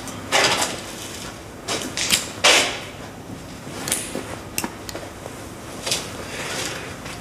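Handling sounds in a small room: a few short rustles and light knocks and clicks, the loudest about two and a half seconds in.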